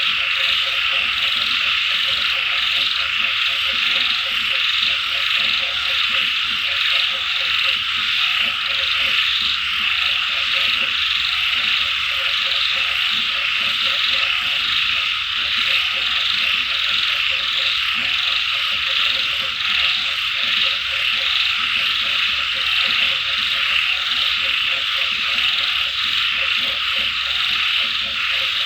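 Chorus of frogs croaking in quick repeated pulses, over a dense, steady high-pitched chorus that does not let up.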